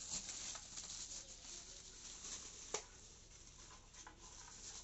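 Faint rustling and a few soft clicks from packaging being handled, with one sharper click near the middle.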